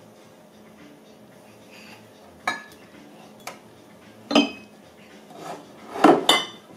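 Glass liquor bottles on a low shelf clinking and knocking together as a baby's hand pushes at them: several separate sharp, ringing clinks, the loudest pair close together near the end.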